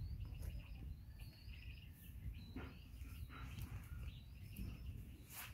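Quiet outdoor ambience: a steady low rumble with small birds chirping faintly on and off, and one sharp click near the end.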